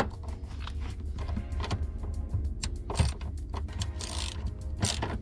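Hand ratchet with a 10 mm socket working a seat-rail bolt: scattered metallic clicks and knocks of the socket and ratchet as the seized bolt is broken loose by hand, since the air impact wrench could not turn it. Faint background music underneath.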